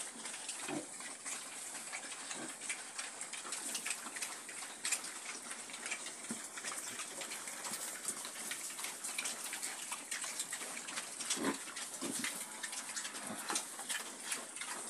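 A group of young pigs eating chopped green fodder: continuous wet chewing and snuffling with many small clicks, and a few short low grunts near the start and about two-thirds of the way through.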